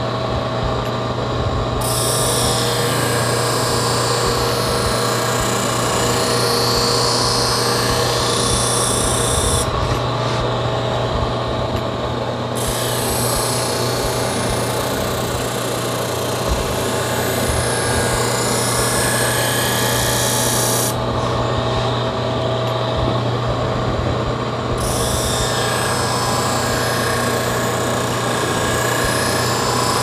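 Pocket-knife blade ground against a spinning disc wheel on an electric bench grinder: a steady grinding hiss over the motor's hum, grinding out a nick in the edge. The hiss stops briefly three times as the blade is lifted off: at the start, about ten seconds in, and just past twenty seconds.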